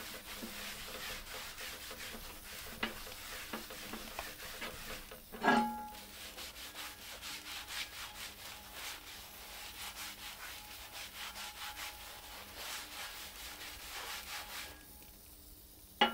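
Paper towel wiping oil over a cast iron pan and the steel top of a wood stove in repeated rubbing strokes, to season the pan and draw out its rust. About five and a half seconds in, a single metallic knock with a short ring.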